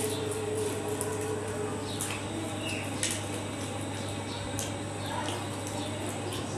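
Eating sounds from two people eating samosas: soft chewing and mouth noises, and a few light clicks and taps as pieces are torn and dipped in a sauce bowl, over a steady low hum.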